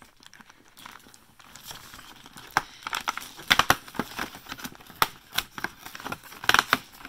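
Perforated cardboard door of an advent calendar being pried and torn open with fingers: a run of sharp crackles and rips of card, starting about two and a half seconds in.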